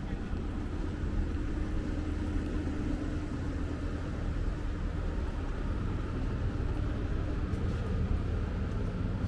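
Steady low engine rumble on a town street, with a faint steady tone over it for the first few seconds.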